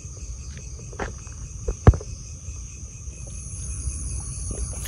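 Crickets chirping steadily in the night, with a single sharp knock about two seconds in.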